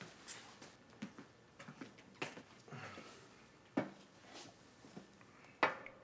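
Scattered light clicks and knocks, irregularly spaced, with the loudest near the end.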